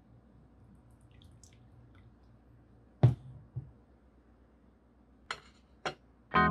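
Dipping sauce trickling and dripping into a small stainless steel bowl, then a sharp metallic clink of the bowl about three seconds in, with a smaller knock just after. Two light clicks near the end as the bowl is handled and set down, and a plucked guitar note starts right at the very end.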